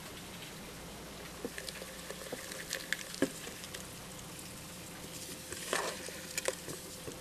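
A plastic cup of feeder insects being handled: light, irregular tapping and scratchy rustling against the plastic, starting about a second and a half in and busiest around three seconds and again near six seconds.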